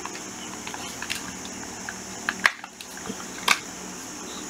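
A few sharp plastic clicks and knocks from handling a Panasonic EZ7880 cordless hammer drill and its 28.8 V battery pack, the loudest two near the middle and near the end, over a low steady hum.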